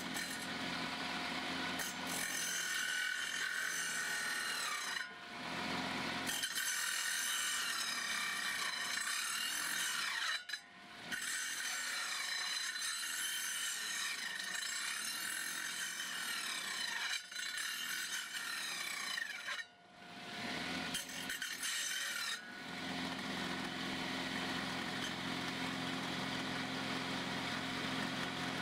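Circular saw with an old, dull blade grinding slowly through a wooden board, with a rasping, wavering whine. The cut breaks off briefly several times. About three quarters of the way in, the cutting stops and only the saw's steady motor hum goes on.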